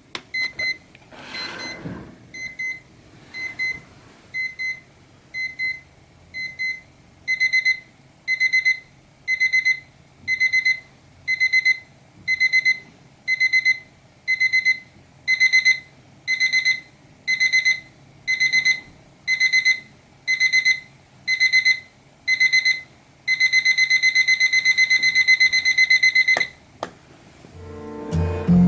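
Seiko QHE209 alarm clock's electronic beep alarm going off: short high-pitched beeps about once a second that get louder and longer in steps, from about seven seconds in and again around fifteen seconds, then rapid continuous beeping for a few seconds near the end before it cuts off.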